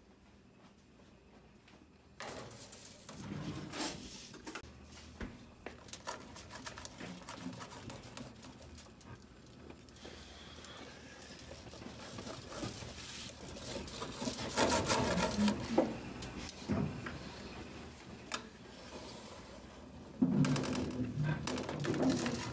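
A knife and fork cutting through a baked thin-crust pizza on a metal pizza pan, starting about two seconds in: irregular scraping and rasping of the blade through the crust, with sharp clicks of metal on metal against the pan.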